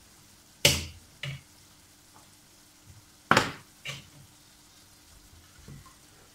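Kitchenware being handled: two loud sharp knocks and a few lighter ones as a ceramic bowl is set down on the glass-ceramic hob and the wooden spoon and frying pan are moved.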